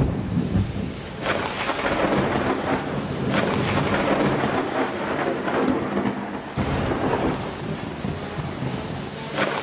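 A recorded thunderstorm effect played through the stage sound system: steady heavy rain with rolling thunder that swells several times, starting suddenly.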